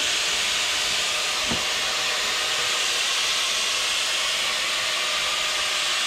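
Welding equipment working on steel, giving a steady, even hiss with no breaks.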